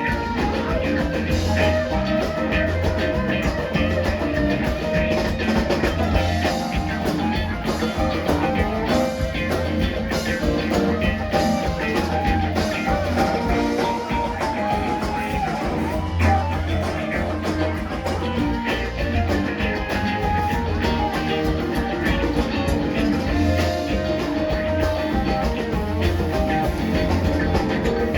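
Live rock band playing an instrumental stretch: electric guitar, bass, keyboards and a drum kit with a steady beat.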